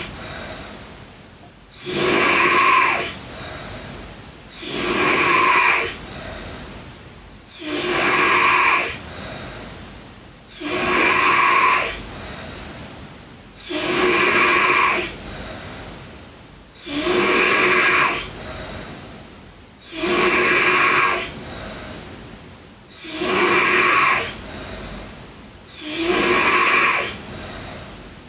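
A sleeping girl snoring in a steady rhythm, one loud snore about every three seconds, each trailing off into a quieter, fading breath.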